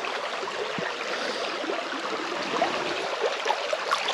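Small stream's water running: a steady rush with small irregular splashes scattered through it.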